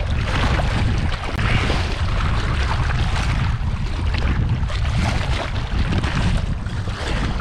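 Wind buffeting the microphone, a steady heavy rumble with a gusty hiss over it.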